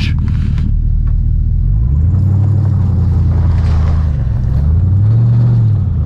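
Plow truck's engine revving under load while it is yanked sideways out of a snowy ditch on a recovery rope. The revs climb about two seconds in, hold steady, climb again and then drop near the end.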